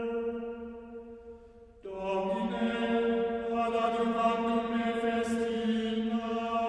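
Background music: a slow, chant-like sustained drone of held chords. One chord fades away and a new one swells in about two seconds in.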